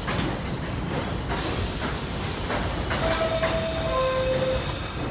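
Pullman Standard R46 subway train running on the tracks, wheels clicking over rail joints, with a rushing hiss from about a second and a half in. Late on, two short steady tones sound one after the other, the second lower.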